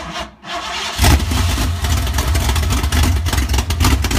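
Built Ford 302 V8 with a big custom-grind roller cam cranking and firing about a second in, then running with a choppy, uneven lope from the radical cam.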